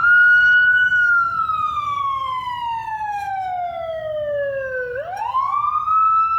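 Siren wail played as a demo sound, processed with Adobe Audition's Doppler shift effect and set to pass on the listener's left. The pitch holds high for about a second, slides slowly down for about four seconds, then climbs again near the end.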